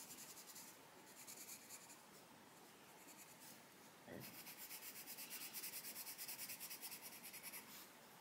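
Faint scratching of a coloured pencil (Arteza Expert) shading back and forth on a colouring-book page in quick short strokes. The strokes are light at first and get firmer from about halfway, at about five or six a second, then stop shortly before the end.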